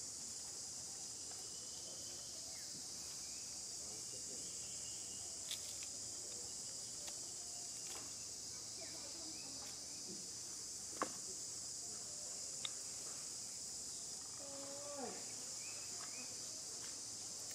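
Steady high-pitched drone of an insect chorus, broken by a few short sharp clicks.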